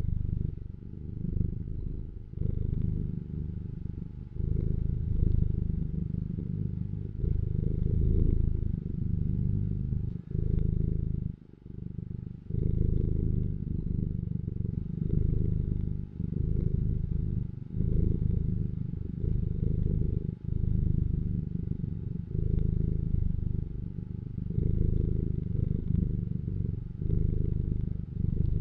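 Domestic cat purring, a continuous low rumble that swells and dips in waves every second or two as it breathes in and out.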